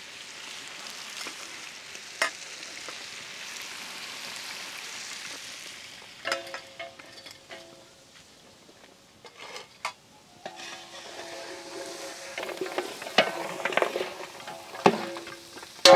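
Mutton pieces with freshly added turmeric, chilli powder and salt sizzling steadily in hot ghee and oil in a large metal pot. From about six seconds in, a metal ladle stirs the pot, scraping and clinking against its sides so that the pot rings.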